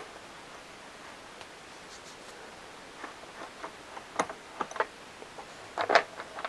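Scattered light clicks and plastic knocks as a hand tool works the fastener of a Jonsered chainsaw's plastic top cover and the cover is handled and lifted off. The clicks start about halfway through, with a louder cluster of knocks near the end.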